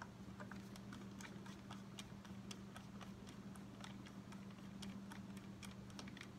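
Faint, irregular small clicks of a screwdriver turning the takedown bolt on a Ruger 10/22 rifle, over a steady low hum.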